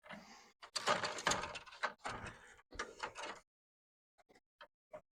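Scraping, sliding and knocking of parts being handled and set down, followed by a few light clicks near the end.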